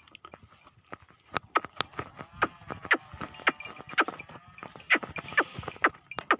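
Goats moving about, making many irregular sharp clicks and knocks, with a bleat or two in the middle.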